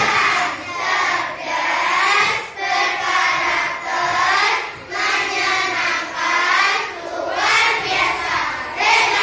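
A class of young children singing a song together in unison, in phrases of about a second with short breaks between them.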